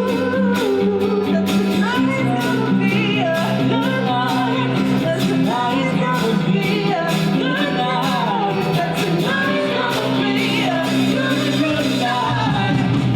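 Music with a singer over sustained bass notes and a steady beat.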